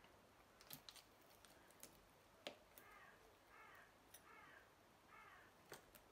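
Faint small clicks and taps as a precision screwdriver seats tiny screws into an iPhone 11's metal shield plate. Four faint bird calls, a little under a second apart, sound in the middle of the stretch.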